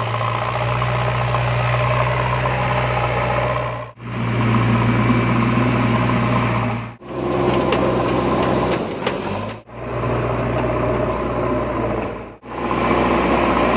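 A vehicle engine running steadily at an even pitch, broken by four brief dropouts spaced a few seconds apart.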